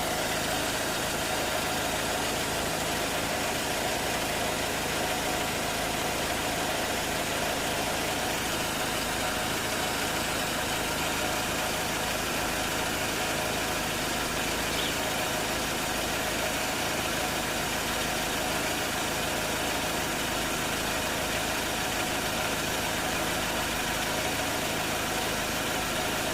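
Second-generation Dodge Neon's engine idling steadily a few minutes after the day's first start, with a snoring, growling noise ("ronquido") that the owner places near the transmission bell housing and is trying to track down.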